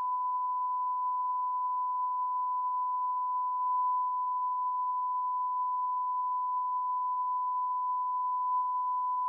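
Steady 1 kHz reference test tone, the 'bars and tone' signal that accompanies SMPTE colour bars: one unbroken pure pitch at a constant level that cuts off abruptly at the very end.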